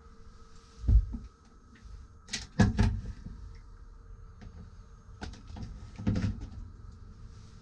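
Clicks and knocks of a plastic pull-out sink sprayer head being lifted and handled: a low thump about a second in, a cluster of sharp clicks near three seconds, and two more groups of clicks around five and six seconds.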